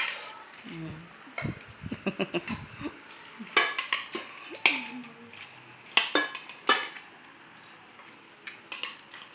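Spoons clinking and scraping against plates and a rice pot during a meal, with a few sharp clinks about three to seven seconds in.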